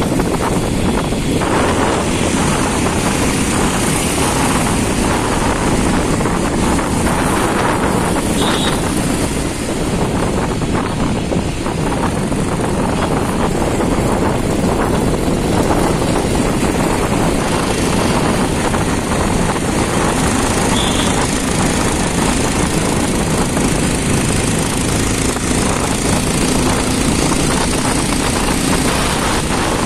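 Wind rushing over the microphone of a moving Bajaj Pulsar 220F motorcycle, with its single-cylinder engine running steadily underneath.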